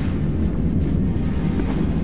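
Background soundtrack music with a heavy, steady low end.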